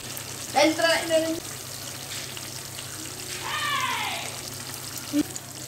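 Paneer gravy simmering and sizzling in a steel pot on a gas stove, a steady low hiss. Two brief voice sounds come over it, about a second in and again near four seconds, the second falling in pitch.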